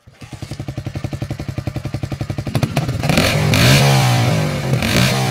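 Motorcycle engine idling with a rapid, even pulsing, then revved from about three seconds in, its pitch rising and falling and the sound growing louder.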